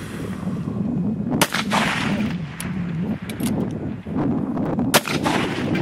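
Two rifle shots about three and a half seconds apart, each a sharp crack followed by a brief echo, the second slightly louder, with a few fainter cracks between them.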